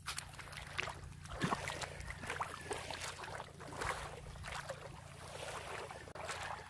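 Small waves lapping at a sandy shoreline, a run of small irregular splashes, with wind rumbling on the microphone.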